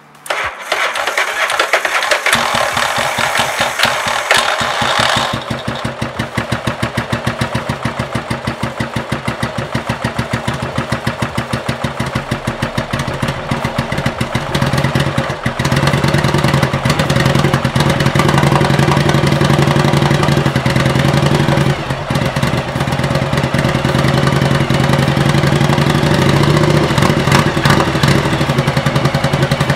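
1985 Yamaha Virago XV700's V-twin being cold-started on its electric starter: the starter turns the engine over for about five seconds as the engine catches, then the engine idles with evenly spaced pulses and rises to a louder, steadier idle about halfway through.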